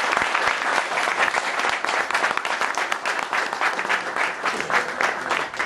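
An audience applauding, many hands clapping at once, the clapping thinning out near the end.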